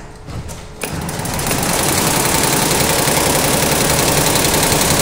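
Multi-needle computerized embroidery machine starting up about a second in and stitching at speed: a loud, rapid, steady mechanical chatter. The machine is running with a presser foot that sometimes fails to drop, which the owner puts down to its broken packing.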